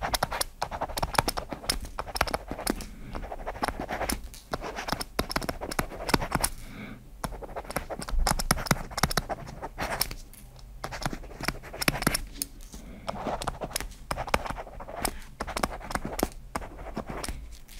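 Kobo Stylus nib writing on the Kobo Elipsa's screen, heard close up: quick scratchy strokes and small ticks of pen on screen, with a couple of brief pauses.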